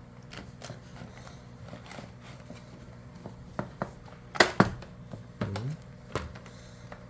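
Hard toy pieces knocking and clattering: a run of sharp clacks, the loudest pair about halfway through, with a few lighter knocks after.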